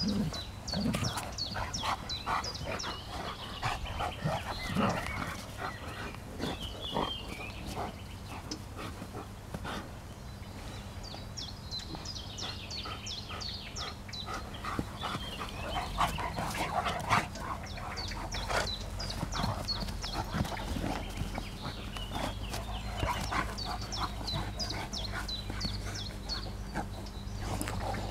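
Two Central Asian Shepherd dogs play-wrestling, with dog vocalizations in irregular bursts over the scuffling, busiest near the start and again about halfway through.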